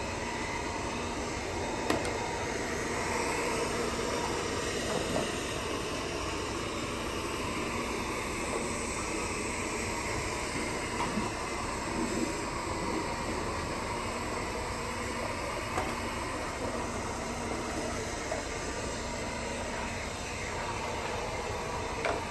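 Roomba robot vacuum running, a steady whirring hiss from its motor and brushes, with a few short knocks scattered through.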